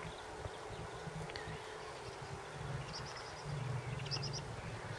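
A low insect buzz that swells twice in the second half, with a few short runs of quick high chirps about three and four seconds in.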